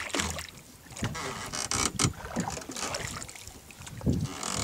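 Water sloshing and splashing around a drifting boat, with irregular knocks and wind on the microphone.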